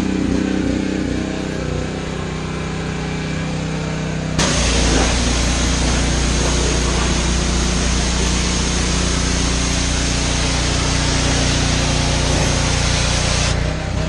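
Honda gas engine of a 3200 PSI Simpson pressure washer running steadily. About four seconds in the spray gun is triggered: a loud hiss of the high-pressure water jet starts suddenly and the engine's low drone grows louder. The spray cuts off shortly before the end.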